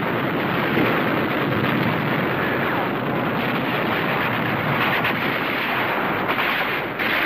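A loud, steady rushing noise without distinct bangs or any tune, in the manner of wind or a distant rumble, dipping briefly near the end.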